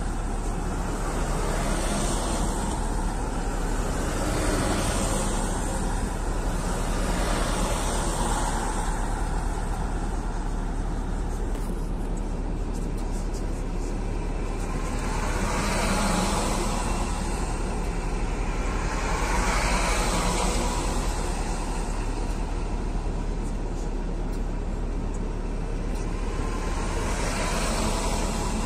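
A column of six-wheeled army cargo trucks passing one after another on a wet road, heard from inside a car: a steady low engine rumble, with tyre hiss swelling and fading as each truck goes by.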